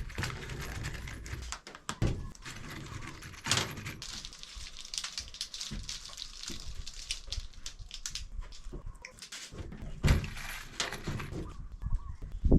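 Scattered knocks, clicks and rustling from a mesh screen door being handled, with a louder stretch of noise about ten seconds in.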